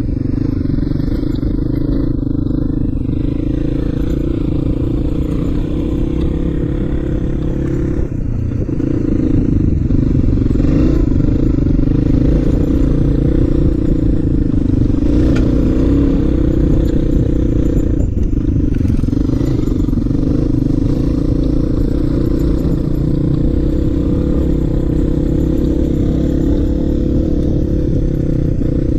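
Suzuki Djebel 250's single-cylinder four-stroke engine running steadily under way on a rough gravel track, getting a little louder about nine seconds in, with a couple of faint knocks from the bike over the stones.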